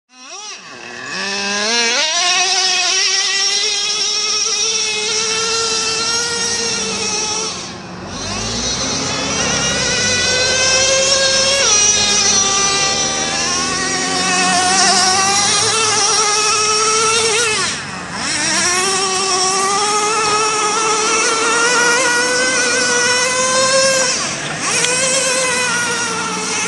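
Traxxas Revo 3.3 nitro RC monster truck's small two-stroke nitro engine running at high revs, its pitch rising and falling with the throttle. It drops off briefly three times as the throttle is let off, about eight, eighteen and twenty-four seconds in.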